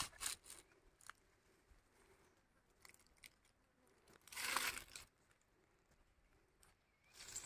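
Dry fallen leaves rustling and crunching in a brief burst about halfway through, with a shorter rustle at the start and a few faint clicks; otherwise near silence.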